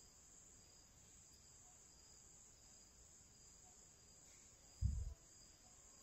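Near silence with a faint, steady high-pitched insect-like whine, and one brief low thump about five seconds in.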